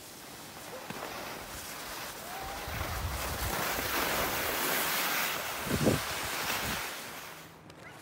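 Skis hissing and scraping over packed snow during a downhill run, with wind buffeting the microphone; the rush builds to its loudest a few seconds in, with a brief thump near six seconds, then eases off near the end.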